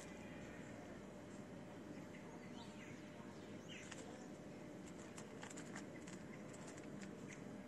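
Faint outdoor garden ambience: steady background noise with a few distant bird chirps near the middle and a scatter of soft clicks a little later.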